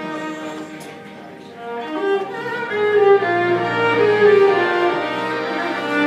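Live klezmer band playing: a bowed fiddle carries the melody over a double bass and accordion. The music drops quieter about a second in and swells back up from about two seconds.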